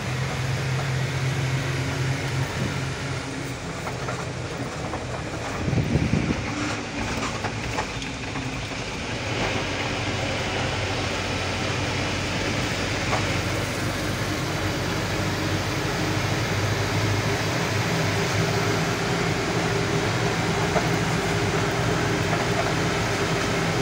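Truck engine running steadily under constant road and cab noise, heard from inside the cab while driving. A short low thump comes about six seconds in.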